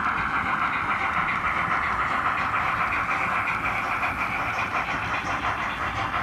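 H0 model train, with Roco BR 50 steam locomotives that carry sound decoders, running past with coaches: a steady rolling and running noise of the wheels on the track and the drive, easing off slightly near the end.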